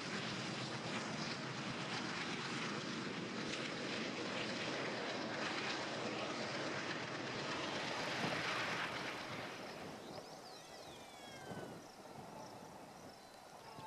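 A train passing on the tracks: the steady noise of its wheels and wagons on the rails, fading away about ten seconds in.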